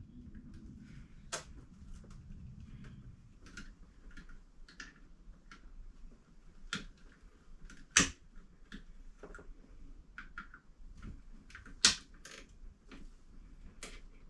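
Scattered small clicks and light knocks of hands and a tool working an old electrical receptacle loose from the wall, with two sharper knocks about eight and twelve seconds in.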